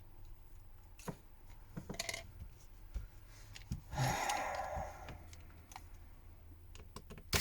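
Faint small clicks from handling a smartphone, with a short scraping rustle about four seconds in, as its SIM card tray is taken out.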